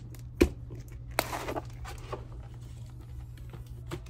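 Paper cash and budgeting envelopes being handled on a desk: a sharp tap about half a second in, a short rustle about a second later, and a faint click near the end, over a steady low hum.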